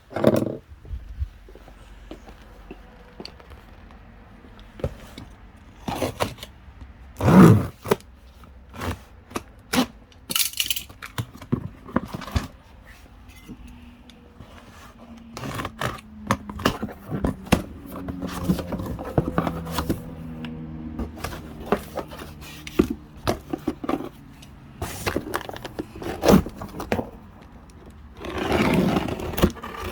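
Irregular knocks, clicks and scrapes of hard objects being handled, with a few short louder clatters and a brief hiss.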